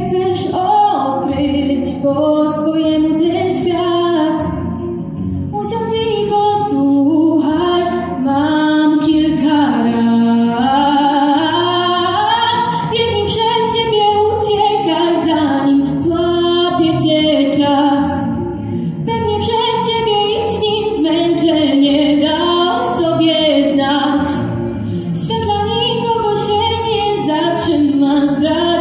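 Female singing: a song performed as music, with melodic lines held and moving continuously.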